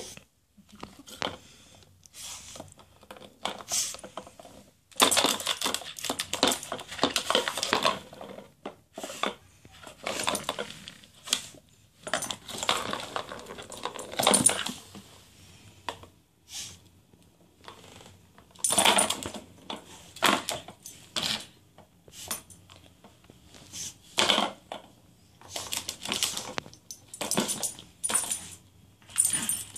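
Plastic ball rattling and rolling around inside a circular cat track toy as a pug puppy noses at it, heard as irregular bursts of clatter and clicks.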